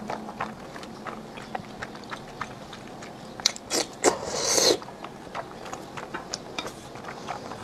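Close-miked eating sounds: a person chewing thick noodles in chili oil, with soft wet mouth clicks throughout. A louder slurp comes about four seconds in as a bite goes into the mouth.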